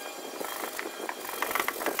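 Carved wooden parts of a model truck clacking and scraping together as they are handled and fitted by hand: a run of irregular clicks and rubs, louder near the end.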